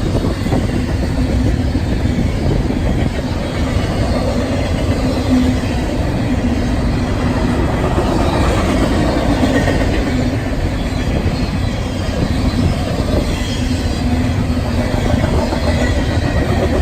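Norfolk Southern freight train's cars rolling past, a steady rumble of wheels on rail with some clickety-clack.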